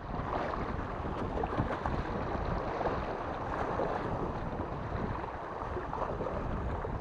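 Wind on an action camera's microphone mixed with small sea waves washing against shore rocks: a steady rushing noise.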